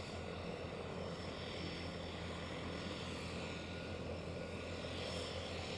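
De Havilland DHC-3 Otter floatplane's propeller engine running steadily.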